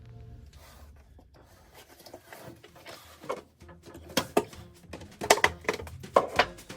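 A series of irregular sharp knocks and clicks, as of hand tools being handled and set down on a workbench.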